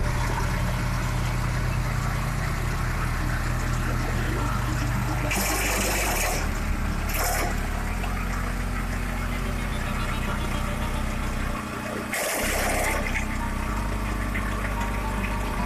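The 18 hp petrol engine of a DS-120BD18 wood chipper running steadily as maple branches are fed through it. There are loud crunching bursts of wood being chipped about five seconds in, about seven seconds in, and about twelve seconds in. The engine dips briefly under load just before the last burst.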